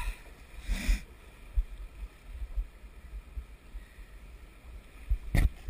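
Shallow river water splashing and sloshing, with wind buffeting the microphone. There is a short splash about a second in and a sharp splash near the end.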